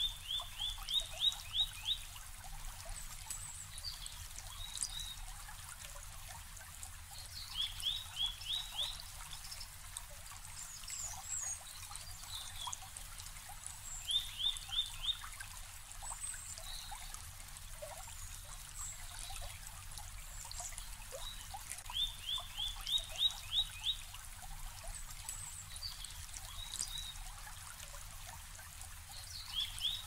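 A shallow brook babbling steadily over stones. A songbird repeats a short trill of quick rising notes about every seven or eight seconds, with scattered chirps from other birds in between.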